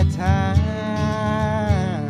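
Male folk singer holding one long sung note over strummed acoustic guitar.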